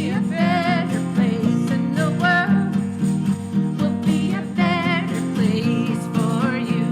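A singer with strong vibrato, accompanied by a steadily strummed acoustic guitar.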